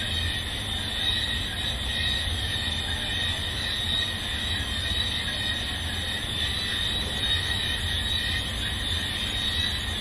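A steady, shrill high-pitched drone over a low rumble, unchanging throughout.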